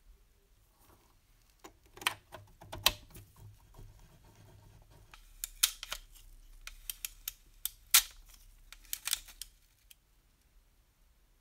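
Irregular sharp metal clicks and knocks from a rusty pre-war JEP clockwork toy locomotive being handled, with its winding key fitted against the seized mechanism.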